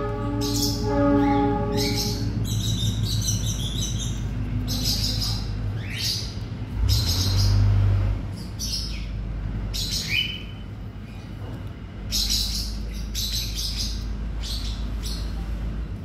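Baby plantain squirrel giving short high squeaky chirps, about one a second, while being hand-fed porridge from a syringe. A steady horn-like tone holds through the first two seconds, over a low steady hum.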